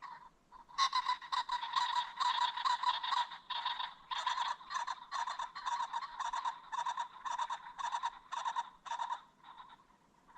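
Ring-necked pheasant giving a long run of short, clucking calls at about three or four a second, starting about a second in and stopping shortly before the end.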